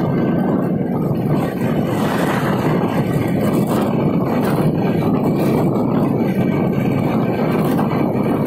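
Steady rush of wind buffeting the microphone on a moving motorbike, with the bike's engine and road noise underneath.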